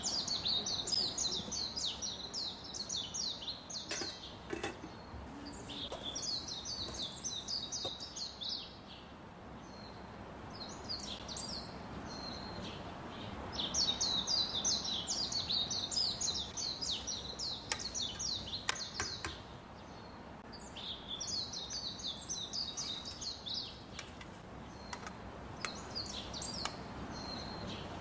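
A songbird singing in rapid runs of repeated high chirps, in bouts of a few seconds with pauses between, over a steady low background hiss, with a few faint clicks.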